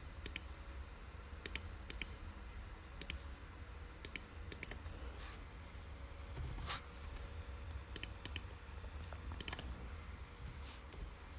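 Computer mouse and keyboard clicks while working in CAD software: scattered single and paired clicks about every second or so, over a faint steady hum.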